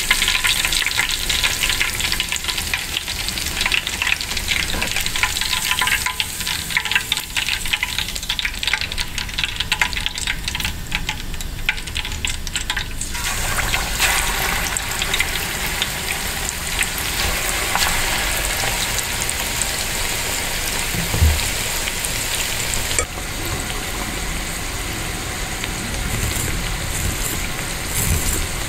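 Chicken skewers deep-frying in hot oil: continuous sizzling and crackling of bubbling oil. About halfway the sound shifts as a raw, marinated skewer is lowered into the oil.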